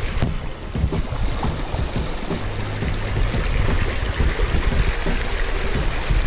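Shallow creek water running over rocks, a steady rushing hiss, with a heavy, uneven low rumble underneath.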